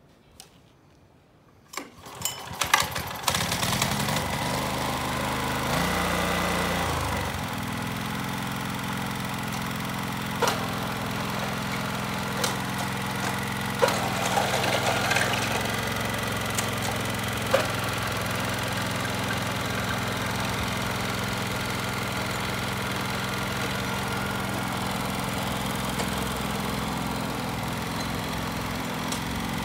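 Yanmar Chibipochi TB3 mini tiller's 3-horsepower engine starting about two seconds in, running fast at first, then dropping in pitch about seven seconds in to a steady idle. A few sharp knocks come over the running engine in the later part.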